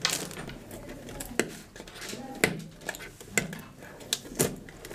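Scattered light clicks and knocks of things being handled on a tabletop around a cardboard cake box, irregular and sharp, with faint murmured voices.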